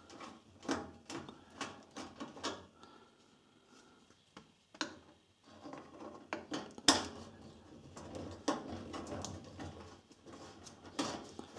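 Screwdriver working the terminal screws on an electric cooker's connection block, undoing the supply cable: scattered small clicks and scrapes of metal and plastic, with one sharper click about seven seconds in.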